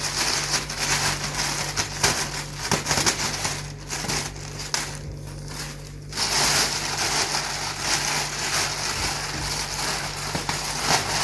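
Plastic bags crinkling and rustling as they are pulled open and unwrapped, with a short lull about five seconds in.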